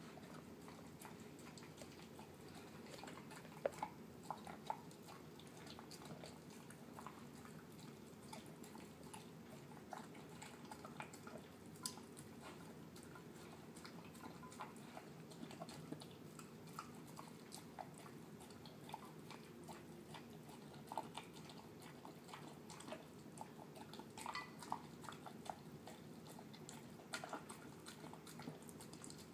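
Terrier mix dog eating canned wet food mixed with kibble: faint, mushy chewing with many small irregular clicks.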